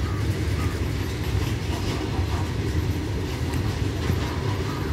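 Coal-laden open box wagons of a freight train rolling steadily past: a continuous heavy rumble of steel wheels on the rails, with faint short squeaks recurring throughout.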